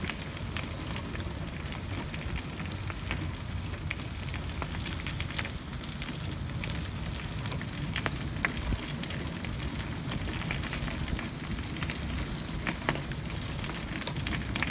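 Wheelchair wheels rolling over a gravel path: a steady crunching crackle of small stones, with a low rumble underneath.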